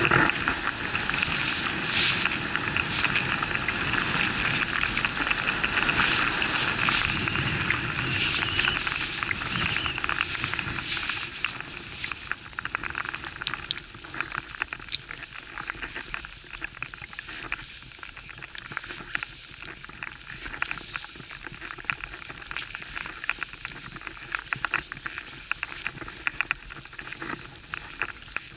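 Wind and snow noise on the microphone of a camera carried by a skier: a rushing, crackly noise, louder for about the first twelve seconds, then quieter with many small crackles.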